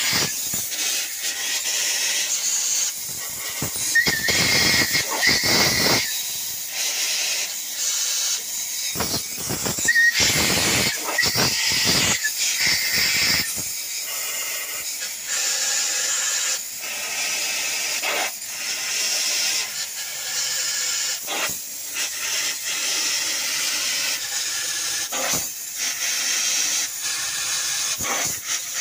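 Continuous hissing noise with irregular louder rasping strokes, several of them running for about half a second to a second.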